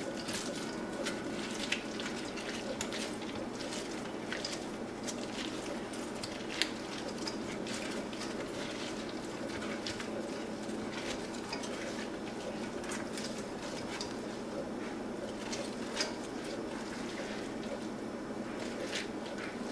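Coleslaw being stirred in a bowl with a spoon: wet shredded cabbage and dressing squishing, with scattered soft clicks of the spoon against the bowl over a steady low background noise.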